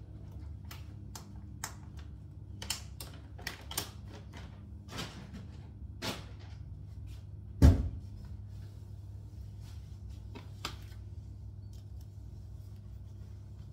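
Newly started dishwasher running with a steady low hum. Over it, a plastic bag of detergent crinkles in short clicks, and a cupboard door shuts with a loud thump a little under eight seconds in.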